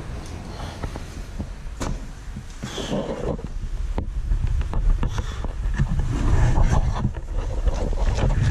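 Low rumbling and rustling of a handheld camera microphone carried along a wet, muddy cave floor, with scattered knocks and clicks of movement, getting louder in the second half.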